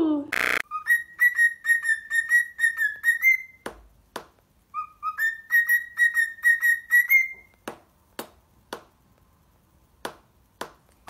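Cockatiel whistling two quick runs of short, evenly pitched chirping notes, each lasting a couple of seconds and lifting slightly at the end. A handful of sharp single taps follow.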